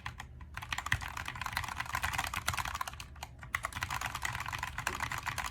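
Fast typing on a Keychron K2 mechanical keyboard with Gateron Brown switches: a rapid, steady stream of key clacks, with a brief pause just after the start and another a little past the middle.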